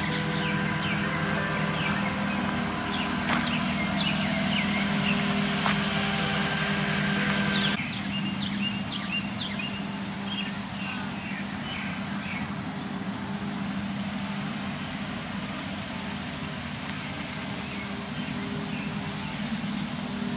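Outdoor ambience: birds chirping in many short calls over a steady low mechanical hum. The background drops a little about eight seconds in, where the recording cuts to another shot.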